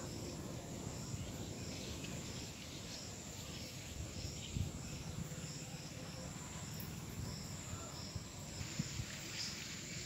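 Rural field ambience: a faint high chirp repeating steadily about every two-thirds of a second over a low rumble of wind on the microphone, with a soft bump or two.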